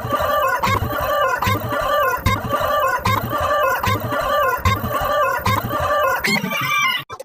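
Chicken clucking sound effect, repeating in an even rhythm about every three-quarters of a second, cutting off abruptly near the end.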